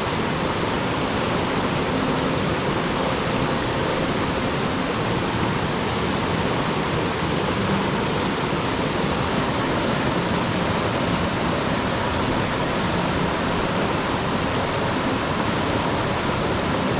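Rushing river water, a steady, loud rush: the West Fork of the Yankee Fork River running high and fast.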